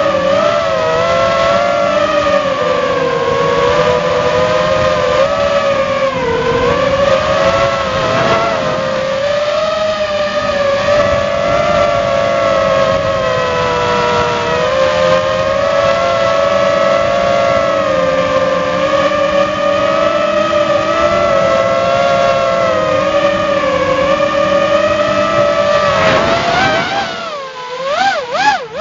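Walkera F210 quadcopter's brushless motors and propellers whining steadily, heard close up from a camera on the drone, the pitch wavering as the throttle changes. Near the end the whine drops and swoops up and down several times.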